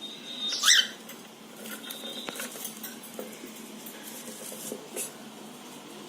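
Cockatiel giving one short, loud chirp about half a second in, followed by light scratching and scattered clicks as the birds move about.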